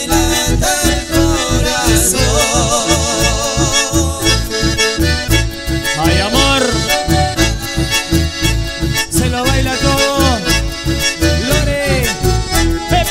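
Live band instrumental break: button accordions play the melody, with a wavering, vibrato-like passage early on, over a steady pulsing bass beat in a dance rhythm; no singing.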